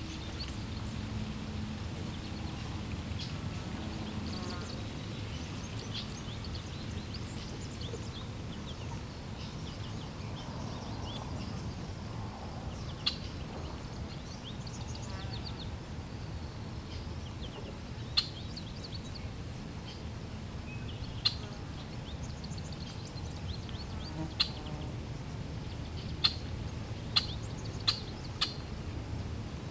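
Water flowing steadily, with small birds chirping and twittering over it. Several sharp, short clicks stand out in the second half.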